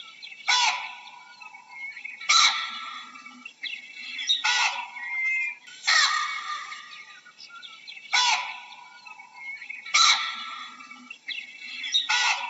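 Baboon calling over and over: seven loud, harsh calls, one about every two seconds, each sudden and dying away within about half a second. Faint bird chirps sound in the gaps.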